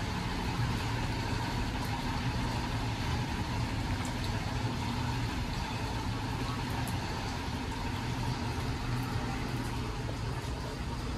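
A car on the move: steady engine hum and road noise.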